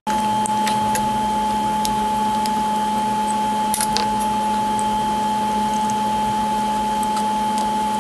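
Steady machine hum with a constant whine, unchanging throughout, over which come a scatter of light clicks of small metal parts being handled.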